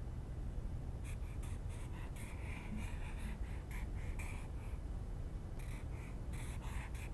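Red felt-tip marker drawn across paper on a clipboard in a run of short, irregular strokes, starting about a second in with a brief pause a little past the middle. A steady low hum runs underneath.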